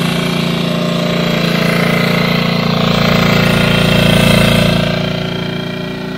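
Hangkai 6.5 hp four-stroke outboard motor idling in neutral in a barrel of water during its break-in run, with its cooling-water stream splashing into the churning water. The sound swells about four seconds in, then eases.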